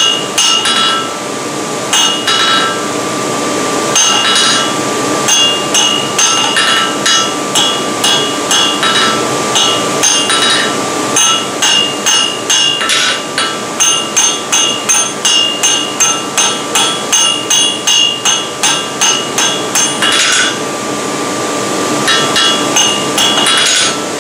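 Hand hammer striking a red-hot steel bar on the edge of an anvil, each blow ringing, as the bar's end is scarfed for a forge weld. The blows come in irregular groups at first, then settle into a steady run of about two a second in the second half.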